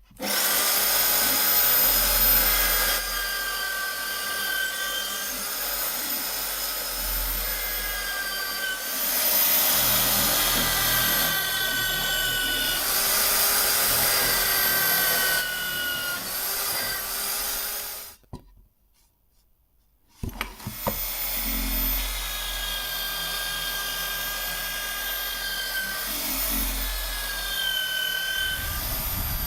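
A tool working a steel knife blank: continuous rasping noise with shifting high whining tones. It breaks off for about two seconds about two-thirds of the way through, then resumes.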